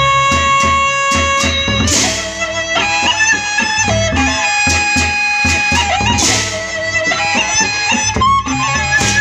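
Lombok gendang beleq ensemble playing: a suling bamboo flute carries a sustained melody over large double-headed gendang beleq drums and small gongs, with two cymbal crashes, about two seconds in and again about six seconds in.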